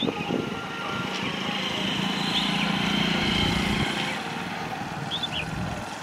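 A passing engine with a steady drone that swells to its loudest about halfway through and then fades, with a few short high bird chirps over it.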